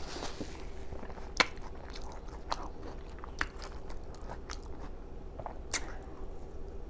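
A person chewing food with open-mouth smacking close to the microphone, with irregular sharp, wet smacks every second or so.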